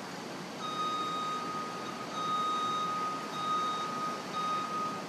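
A construction machine's warning beeper sounds a steady high tone four times, in long beeps of about a second each with short breaks between, over the steady background noise of the site and street.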